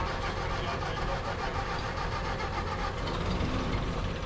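Vintage truck engines idling in a line of waiting vehicles, a steady low rumble with a fast, even firing pulse and no revving.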